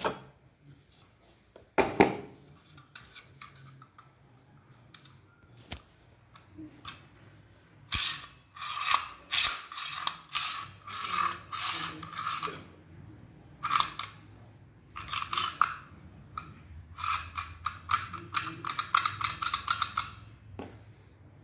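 Stainless steel murukku press being handled: a metal clink, then a sharp clack about two seconds in. From about eight seconds in come runs of rapid mechanical clicking as the top handle is worked to move the plunger rod.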